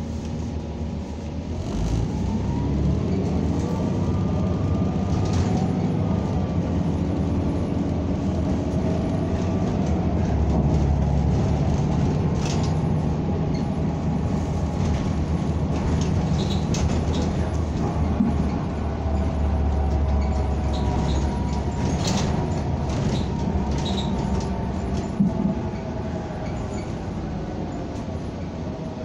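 NABI 45C-LFW transit bus pulling away and gathering speed, its drivetrain whine rising in pitch from about two seconds in, then falling away again as it slows near the end. Knocks and rattles come through now and then over the road.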